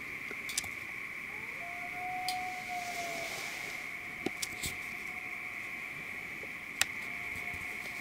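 Common loon giving its wail: one long, nearly level note that swells in about a second and a half in and fades out about two seconds later, with fainter repeats near the middle and the end. A steady high buzz runs underneath, and a few sharp clicks break in.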